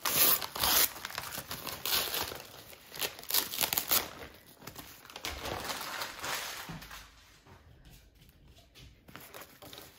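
Wrapping paper being crumpled and pulled off a rolled package by hand, busiest for the first four seconds, then thinning out and falling quiet about seven seconds in, with a few soft rustles near the end.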